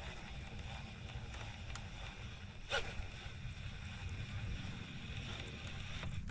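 Wind rumbling on the microphone and water lapping against a boat hull, steady throughout, with one brief louder sound about three seconds in.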